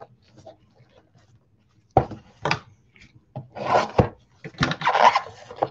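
NFL Mosaic trading cards and their pack wrapper handled on a tabletop. From about two seconds in come a few sharp taps and short scraping, rustling bursts of wrapper and card stock.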